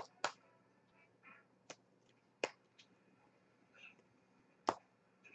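Quiet handling of trading cards and a hard plastic card holder: about five sharp, isolated clicks and taps spread over several seconds.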